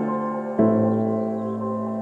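Slow ambient background music: sustained, fading chords, with a new chord about half a second in.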